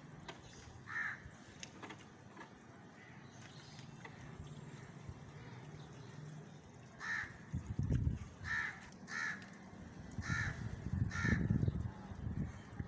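Crows cawing: a series of short harsh caws, a couple near the start and five more in the second half, some in quick pairs. Low rumbling noises come up twice in the second half, the louder one near the end.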